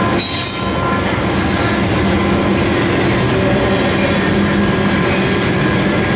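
Double-stack intermodal well cars of a Union Pacific freight train rolling past close by: a loud, steady rumble of steel wheels on the rails, with faint steady high tones riding over it.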